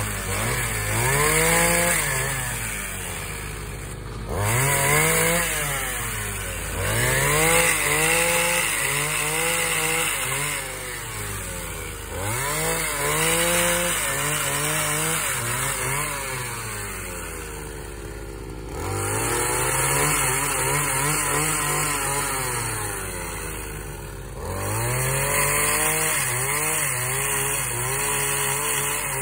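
Brushcutter engine driving a pole-saw chain attachment through tree branches, revved up about seven times; each time its pitch climbs, then falls away back toward idle.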